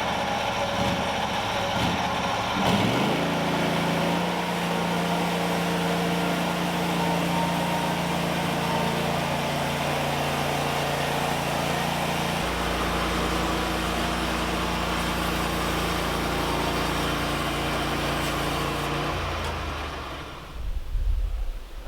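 An engine running at a steady speed, its pitch settling about three seconds in, then dying away near the end.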